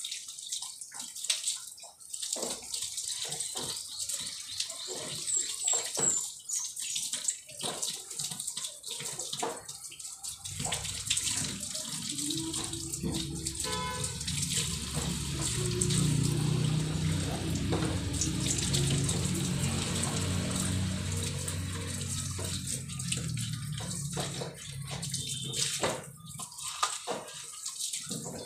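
Water splashing in short, irregular bursts, then from about ten seconds in a steadier rush of water running into a container for about fifteen seconds, before the splashes return near the end.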